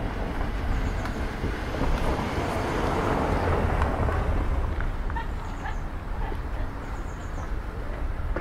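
Outdoor street ambience: a steady noisy rumble that swells about three seconds in, with short high chirps now and then.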